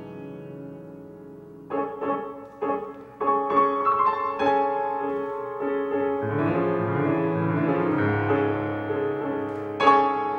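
Instrumental music led by piano. A held chord dies away, then single piano notes are played, and about six seconds in a fuller sustained accompaniment joins in.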